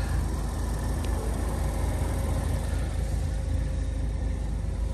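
2013 Ford Focus ST's turbocharged four-cylinder engine idling steadily through its 2.5-inch Magnaflow exhaust, a low even rumble with a faint hum on top.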